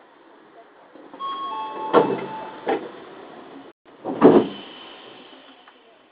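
Sliding doors of an Odakyu 3000-series commuter train closing: a few steady tones sound, then there are knocks about two seconds in and a louder thud about four seconds in.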